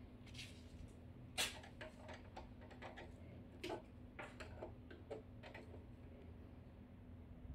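Scattered light clicks and taps of a hand handling the rubber antennas on a 64-port SMS modem's metal case, the sharpest about a second and a half in, over a steady low hum.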